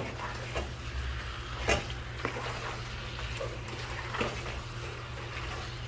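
Chicken pieces being stirred together with chili powder and salt in a pot: soft squishing and scraping with a few sharp clinks, the clearest about two seconds in and again near four seconds. A steady low hum runs underneath.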